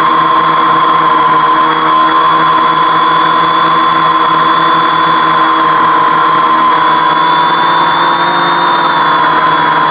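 Homemade 520 mm quadcopter's electric motors and propellers whining steadily as it hovers, the pitch dipping slightly about eight seconds in.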